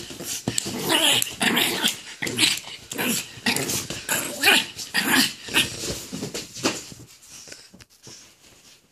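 Pug growling in play while tugging at a toy held in a hand, in short bursts a few times a second, dying away about seven seconds in.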